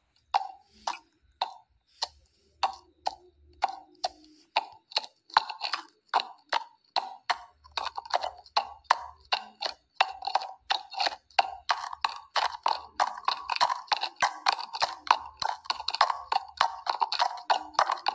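Horse hoofbeats clip-clopping: slow, spaced strikes at first, about two a second, quickening about five seconds in into a faster, busier rhythm.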